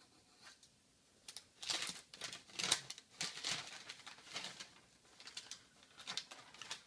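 Packing material rustling as a can is unwrapped and taken out of a parcel. The rustles come in short, irregular bursts, starting about a second in.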